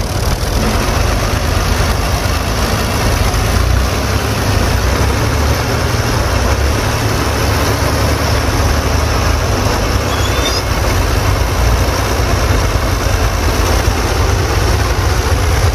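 Fiat 480 tractor's three-cylinder diesel engine running steadily as the tractor works across a heap of chopped fodder, a loud, even engine sound heavy in the low range.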